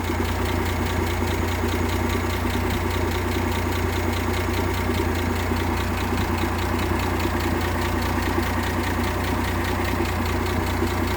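1958 AMC Rambler Super's engine idling steadily, firing evenly with no misfire now that a new distributor cap is fitted.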